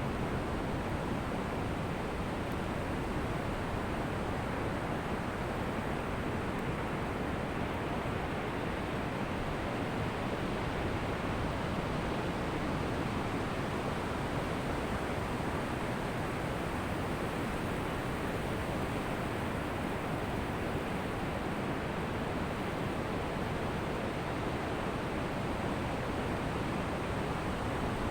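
Ocean surf washing on a beach, a steady even rush of waves with no single break standing out.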